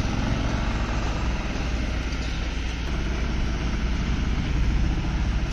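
Small Mahindra Jeeto mini truck engine running steadily at low speed as the loaded truck is manoeuvred, a deep even rumble.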